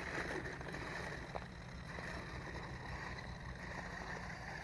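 Small toy-grade RC truck's electric motor and gears whirring as it drives up a slope, against a steady background rumble.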